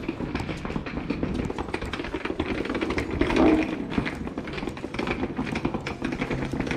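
Wheels of a rolling suitcase rattling over brick paving: a dense, irregular stream of small clicks and taps. About three and a half seconds in, a short voice-like sound is the loudest thing.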